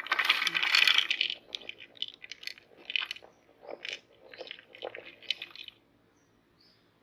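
Popcorn rattling and crunching in a meat grinder. A dense burst of clatter lasts about a second, then scattered crackles and clicks thin out and stop near the end.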